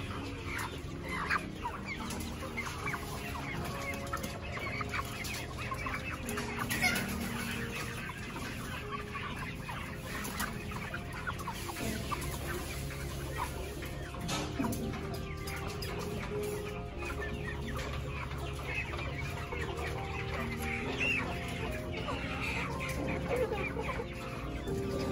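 Chickens clucking, many short calls from several birds overlapping throughout.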